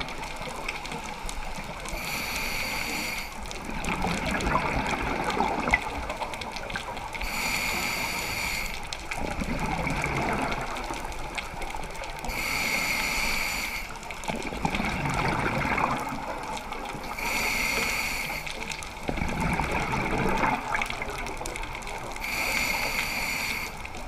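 Scuba diver breathing through a regulator underwater: five short hissing inhalations about every five seconds, each followed by the rumbling gurgle of exhaled bubbles.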